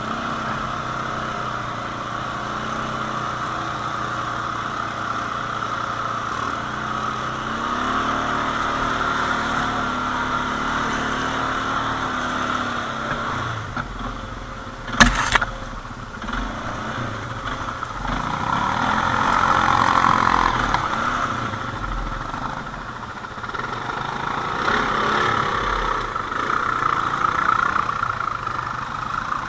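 ATV engine running on an off-road ride, its pitch rising and falling as the throttle changes. There is a single sharp knock about halfway through, and louder surges of engine noise near the end.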